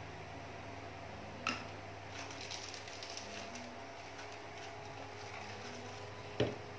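Hands handling an action camera's cardboard box and plastic-bagged accessories: soft crinkling of plastic wrap, a sharp click about a second and a half in, and a dull thump near the end, over a steady low hum.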